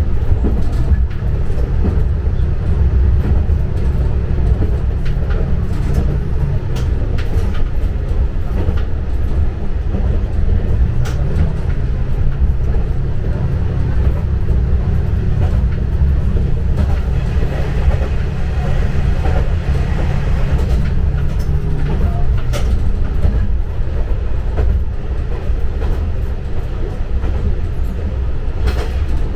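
Hojo Railway diesel railcar running along the track: a steady low engine drone whose pitch rises about ten seconds in and falls back about twenty-two seconds in, with scattered clacks of the wheels over rail joints.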